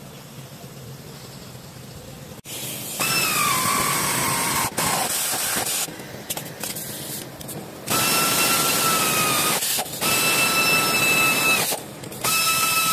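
Pneumatic ratchet running in four short bursts, each a loud hiss with a steady whine, working bolts on the underside of a Toyota Previa's engine and transmission. The first burst starts about three seconds in and dips in pitch as it runs; the other three come close together near the end.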